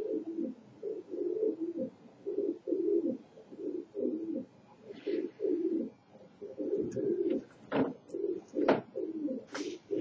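Pigeons cooing in repeated rolling phrases, about one a second. A few sharp knocks or taps sound in the last few seconds.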